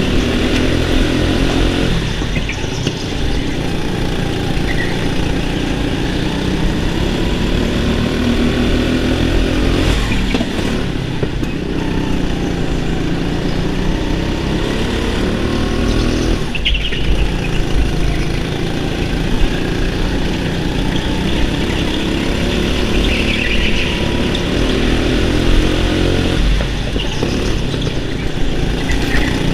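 Go-kart engine heard from on board, its pitch climbing steadily as it accelerates and dropping sharply when the throttle is lifted, about three times.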